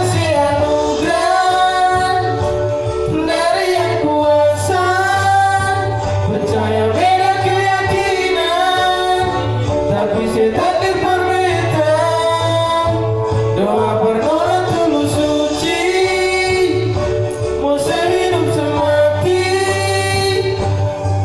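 Music: a sung love-song melody over a steady bass backing.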